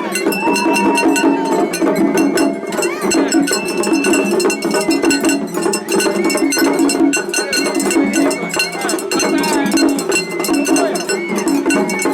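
Japanese festival hayashi music: an atarigane hand gong struck in a rapid, steady clatter, with a shinobue bamboo flute playing held, wavering notes over a dense band of drumming.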